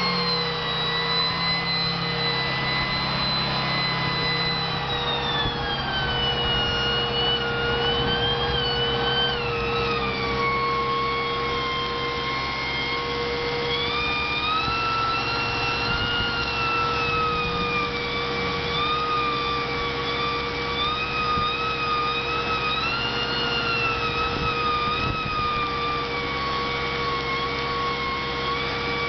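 Truck-mounted Dynaset HWG200 hydraulic welder generator running with a high whine that holds steady, then about five seconds in drops in pitch and wavers as the stick-welding arc puts load on it. The arc crackles underneath.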